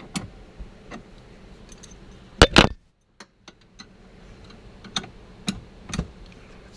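Scattered metal clicks and clinks from hand tools and seat belt hardware as a seat belt anchor bolt is loosened and adjusted. About two and a half seconds in there is one louder, brief clatter.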